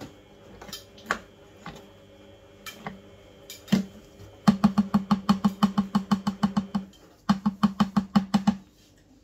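A metal spoon knocking against the rim of a plastic blender jar to knock thick blended paste off it: a few scattered taps, then a fast run of knocks at about six a second that breaks off briefly and starts again.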